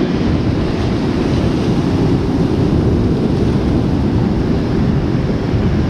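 Sea swell breaking and washing over shoreline rocks in a steady rush of surf, mixed with wind noise on the microphone.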